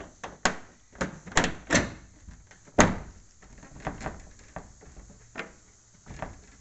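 Irregular knocks and thumps as a rooftop evaporative air cooler's housing is pushed and shifted into place on a Volkswagen Kombi's roof. The loudest thump comes near the middle.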